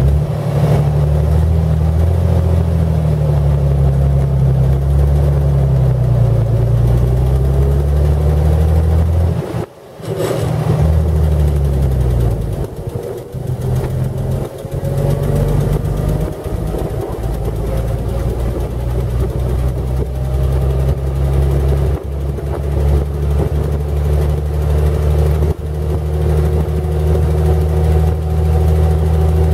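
A 1917 Buick six-cylinder overhead-valve engine running under way in an open touring car, its pitch sagging and then climbing again as the speed changes. About ten seconds in the sound drops out for a moment, then the engine carries on steadily.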